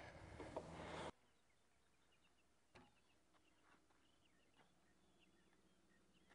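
Near silence: faint outdoor background noise that cuts off about a second in, then almost nothing but a few very faint bird chirps and a single faint tick.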